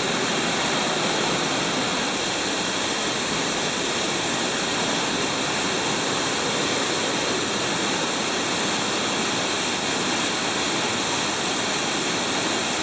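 Large waterfall's loud, steady rush of falling water.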